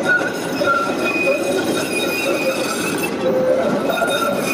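Modern articulated low-floor tram running past close by on street track, its steel wheels squealing on the rails in high tones that come and go over a steady rumble.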